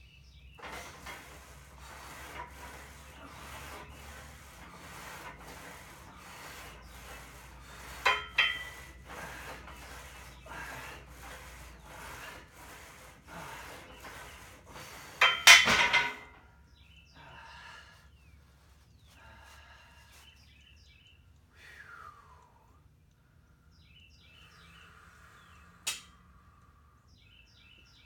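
Barbell on a Smith machine working through bench-press reps: a regular run of short rasping strokes, about two a second, with a couple of sharp clanks partway through. About halfway the bar is racked with a loud metal clank and the rhythm stops; birds chirp faintly after that, and there is one sharp click near the end.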